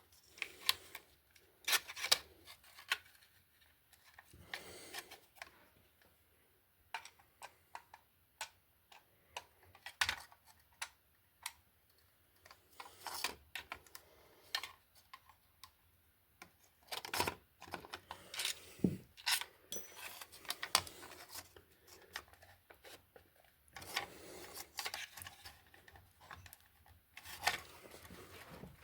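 Irregular clicks, knocks and scraping of a plastic double socket faceplate and its long fixing screws being handled and worked into the mounting box.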